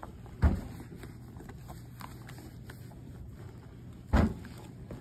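Two dull thumps about three and a half seconds apart over a low steady hum: handling noise as a Nasco IV training arm is gripped and moved while its new skin is smoothed on by hand.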